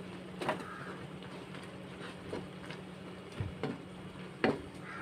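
Kitchen utensils knocking and clinking against a cooking pot, a handful of separate knocks with the loudest about four and a half seconds in, over a steady low hum.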